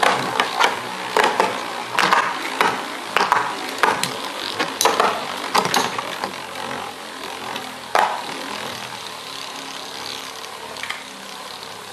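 Two metal Beyblade tops, Lightning L-Drago and Meteo L-Drago, spinning and clashing in a plastic stadium. A rapid, uneven run of sharp clacks as they strike each other and the walls, the last loud one about eight seconds in, then a steady whirring hiss as they spin apart.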